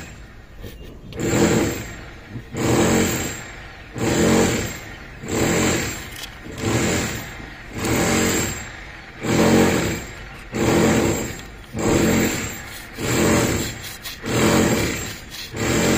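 Potter wasp buzzing in a steady rhythm of pulses, each about a second long and a little over a second apart, as it works mud into its nest cell.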